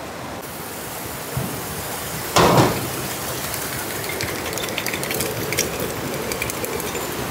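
Steady rush of river rapids, with a loud knock a little over two seconds in and then a run of small clicks and taps as cooked seafood is tipped out of a glass jar into a large aluminium pot.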